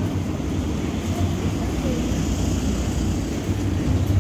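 Steady low rumble of an underground car park's background noise, with no distinct events.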